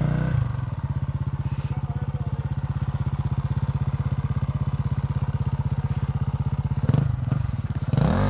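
Dirt bike engine running at a steady low idle, blipped briefly about seven seconds in and revved up and back down near the end.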